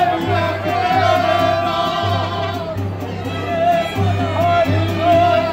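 Live Mexican band music with violin over a bass line played in even, repeated notes, and people in the room singing along loudly.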